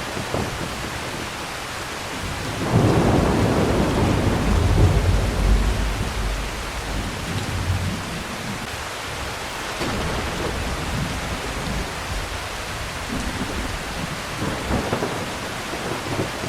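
Steady heavy rain with thunder: a loud low roll of thunder builds about three seconds in and fades over some five seconds, with fainter rumbles later on.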